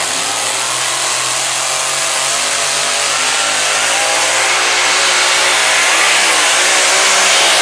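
Tractor engine running hard under heavy pulling load, its pitch wavering slightly and the sound slowly growing louder.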